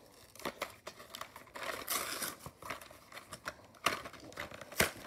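The cardboard backing card and plastic blister of a toy-car package being torn open by hand: irregular tearing and crinkling, with a couple of sharp clicks near the end.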